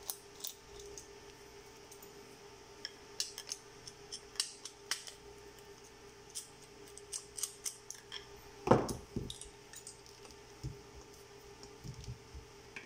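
Scattered small clicks and taps as a cover plate is worked loose and taken off an SLE 5000 infant ventilator during a battery replacement, with one louder knock about nine seconds in. A faint steady hum runs underneath.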